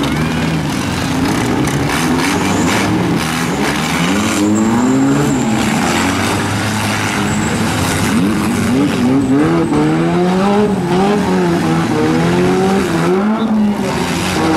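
Four-cylinder demolition-derby cars revving hard, their engine notes rising and falling as they push and ram one another. Sharp knocks from the collisions come now and then, and tyres spin in the mud.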